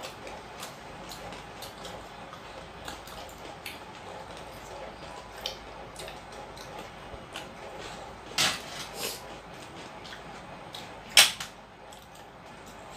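Eating sounds of people eating rice and curry by hand from metal plates: small clicks and taps of fingers and food against the plates. There are two sharper clacks about eight and a half seconds in and a single loudest clack about eleven seconds in.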